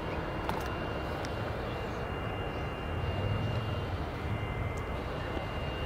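Airliner engine noise from the runway: a steady rumble that swells briefly about three seconds in, with a thin steady high tone over it.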